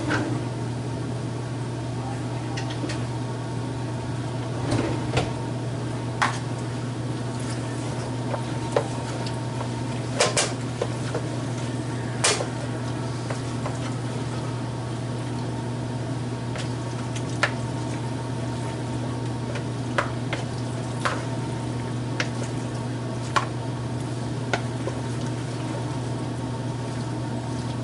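Chicken thighs being stirred in a plastic mixing bowl to coat them in green enchilada sauce: scattered light knocks and clicks over a steady low hum.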